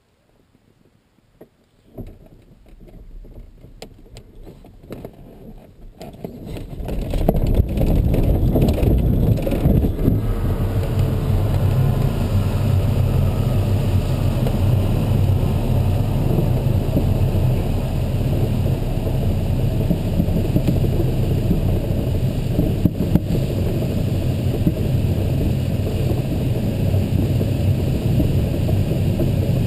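LS6 glider launching, heard from inside the cockpit: scattered knocks and rattles as it starts rolling about two seconds in, then from about seven seconds a loud steady rush of air and low rumble as it climbs away.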